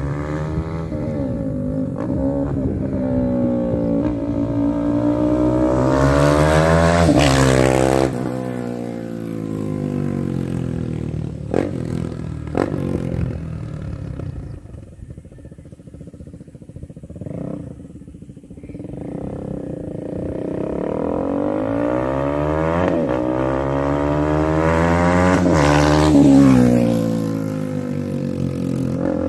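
KTM Duke 390 single-cylinder engine, running through a decat mid pipe and the stock muffler without its dB killer, in two fly-bys. Each time the engine note climbs as the bike approaches, then drops sharply in pitch and fades as it passes, the second pass near the end.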